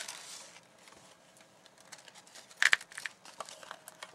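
Paper and plastic handled close to the microphone: light crinkling and rustling with scattered small clicks, and a louder sharp crackle about two and a half seconds in.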